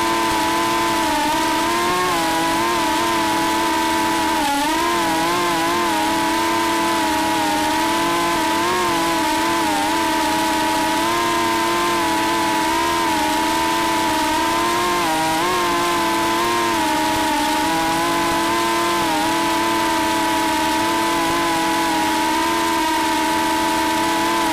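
FPV quadcopter's electric motors and propellers whining steadily, the pitch wavering slightly up and down with throttle changes.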